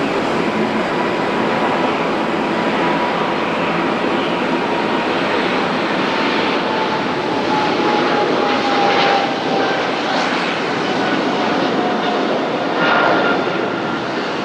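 Jet airliner engines at takeoff thrust: a steady loud roar with a whining tone that slowly falls in pitch as the aircraft passes and climbs away.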